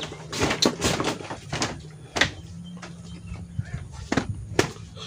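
Handling noise on a handheld camera's microphone: a burst of rustling followed by a string of sharp knocks and clatters, roughly one a second.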